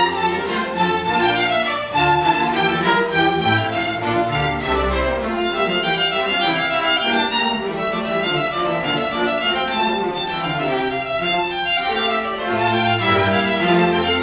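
A string orchestra of violins, cellos and double bass playing together live, with many quick-changing notes over a moving bass line, at a steady level.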